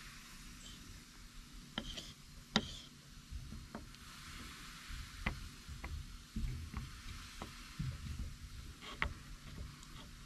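Faint, scattered clicks and knocks of a knife working on a cutting board as goat T-bone steaks are trimmed, over low handling noise.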